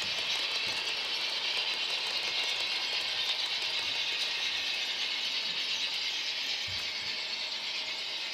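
N scale model passenger trains running on DCC-powered track: a steady, high-pitched running noise of small wheels and motors on the rails.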